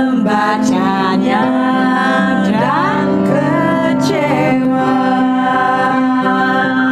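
Several women singing together to an upright piano accompaniment.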